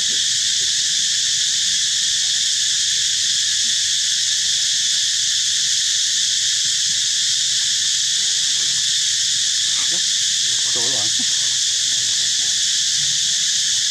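Steady, loud, high-pitched drone of an insect chorus that never lets up. Over it, a few short wavering animal cries, about ten and eleven seconds in.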